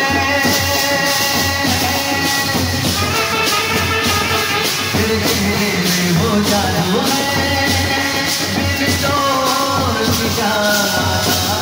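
Loud Indian procession band music: a singing melody over a steady drum beat, played without a pause.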